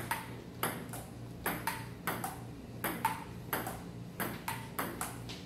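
Table tennis rally: the ball clicking back and forth off the rubber paddles and bouncing on the JOOLA table top, about fourteen sharp pocks in a quick, uneven rhythm.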